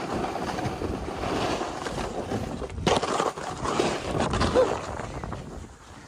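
Snowboard sliding and scraping over packed snow, with wind rushing on the microphone.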